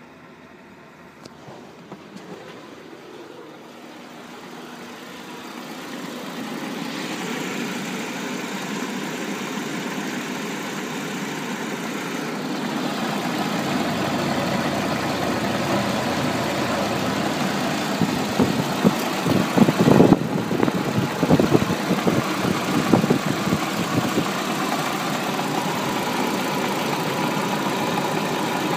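Volkswagen Passat B5's 1.8-litre turbocharged four-cylinder AEB engine idling steadily. It grows louder over the first several seconds, as it goes from being heard at the dashboard to close up under the bonnet. Around the middle, with the oil filler cap off, a run of irregular louder thuds sits over the idle.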